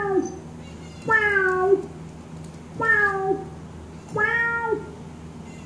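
Synthesized cat meows played on a Kurzweil PC3 keyboard: four near-identical meows roughly a second and a half apart, each sliding slightly down in pitch, holding, then dropping off at the end.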